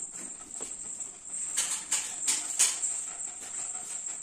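Small dog moving about on a tiled floor, with four sharp, bright clicks close together around the middle.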